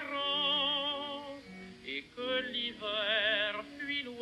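A sung melody with wide vibrato on long held notes, over musical accompaniment.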